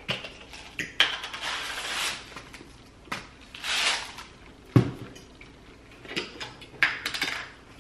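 Cutlery clinking and knocking against plates and dishes during a meal, with a few sharp clinks and two longer stretches of rasping noise.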